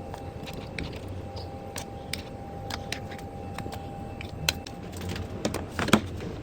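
Light, irregular clicks and taps of frozen rice balls being set into an air fryer basket, over a steady low hum, with a couple of louder knocks near the end.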